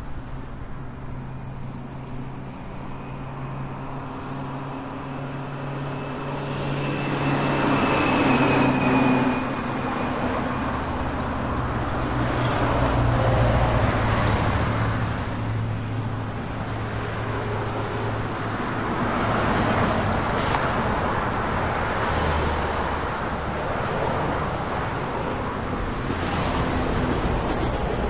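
Busy city street traffic: a steady low hum of running engines, with vehicles passing one after another so the noise swells and fades every few seconds.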